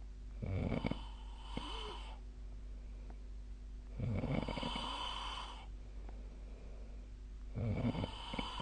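A sleeping person snoring: three snores about three and a half seconds apart, each lasting about a second and a half.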